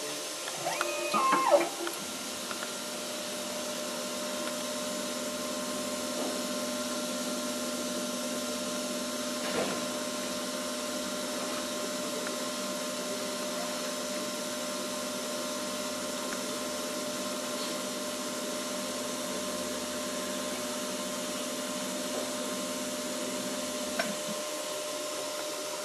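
Pfaff 8312 ultrasonic cut-and-seal machine running with a steady hum as fabric is fed through and cut and sealed. A short clatter comes just before it starts, and a click near the end as it stops.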